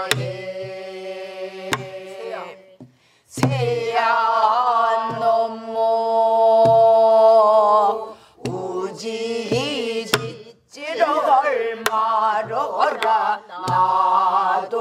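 Korean Namdo folk singing: a woman's voice leads slow, drawn-out phrases with wavering held notes, and a group of voices joins in. Strokes on a buk barrel drum keep time. The singing breaks briefly for breath about 3 seconds in and again about 10 seconds in.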